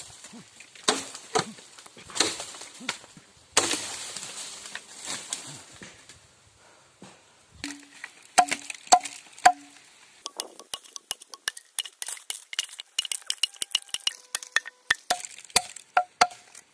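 Repeated hard strikes with a metallic clink. A few are spaced out with a scrape among them. Then four ringing blows come about half a second apart, followed by a quick run of light clinking taps, several a second.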